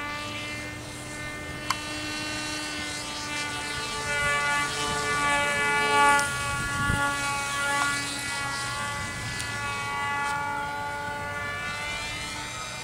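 UB-130 radio-controlled model airplane's motor and propeller whining overhead, the pitch rising and falling as the throttle and distance change. A single sharp click about two seconds in.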